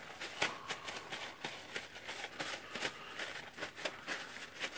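Paper towel rustling and rubbing against the metal gear assembly of a Milwaukee M18 cordless drill as it is wiped clean: an irregular run of crinkles and short scrapes.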